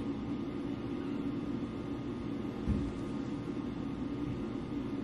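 Steady low mechanical hum of background noise, with a single soft low thump a little past halfway through.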